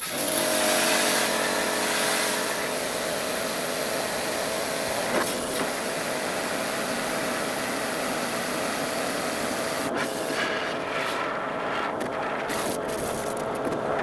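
Karcher K4 pressure washer running with its lance head attached, spraying water into a bucket to fill it: a steady hiss of spray over the pump motor's hum. The sound breaks off briefly a few times near the end.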